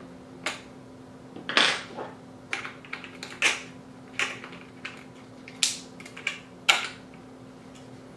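Irregular sharp clicks, about ten over several seconds, from handling the nose and bit of a Festool DWC 18 cordless drywall screw gun. A faint steady hum runs underneath.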